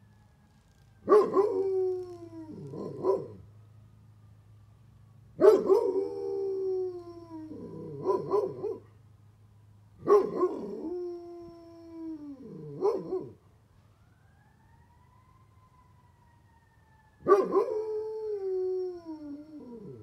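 A Great Pyrenees howling: four long howls, each starting high and sliding down in pitch, joining a fire truck siren. The siren wails faintly underneath, its pitch slowly rising and falling.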